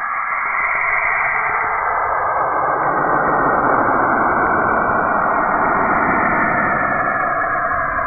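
NASA space-sound recording: a steady, dense, hissing noise with faint tone bands in it, swelling a little louder and fuller from about one to three seconds in.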